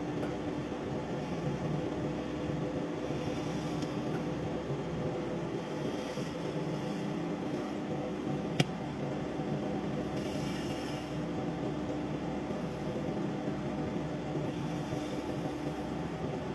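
Microwave oven running with a steady hum, with one sharp click about eight and a half seconds in.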